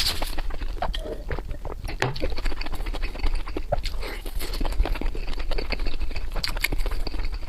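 Close-miked eating: irregular wet chewing and smacking, with many short clicks.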